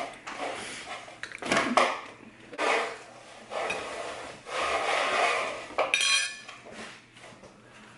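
Metal fork clinking and scraping against a ceramic plate while cutting pizza: several sharp clinks, then a longer scrape in the middle.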